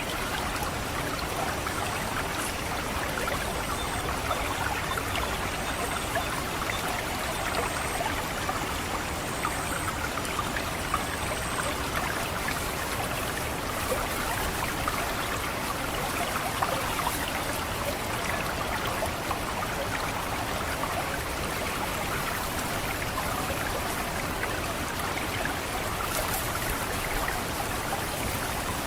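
Water trickling and gurgling steadily through a rice paddy. Over it, an orange-headed thrush gives its thin, high 'ngecit' call note about every two seconds; the calls stop about twelve seconds in.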